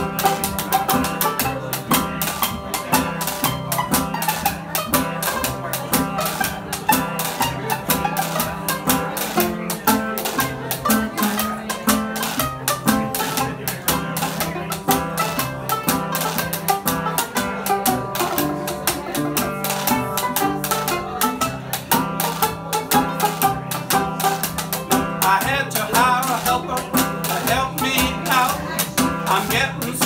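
Old-time jug-band music played live on acoustic instruments: a National resonator guitar and a banjo strumming a fast, steady rhythm over a stepping bass line, in an instrumental passage.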